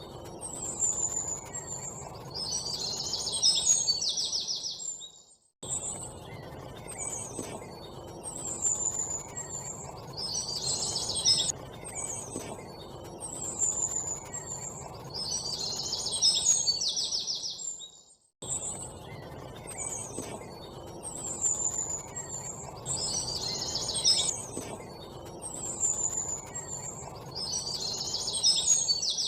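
Birds chirping and calling, high-pitched chirps and trills in repeated phrases over a steady low background noise. The sound cuts out abruptly twice.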